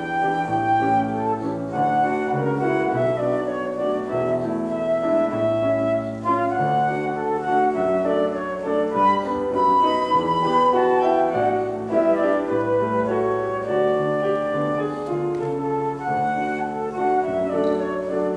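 Concert flute playing a melody with grand piano accompaniment.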